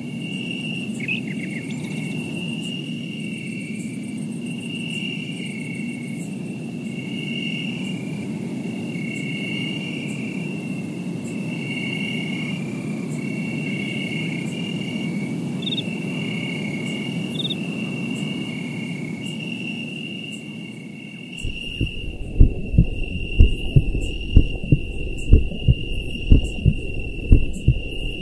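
Insects chirping steadily in a rhythmic, pulsing trill over a low rumbling haze. A little over two-thirds of the way in, the rumble drops out and deep, heavy thumps begin, about one or two a second, the loudest sound present.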